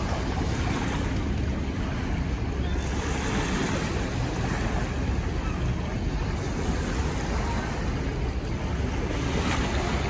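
Steady wind buffeting the microphone in a low rush, with small waves lapping at the rocky shore.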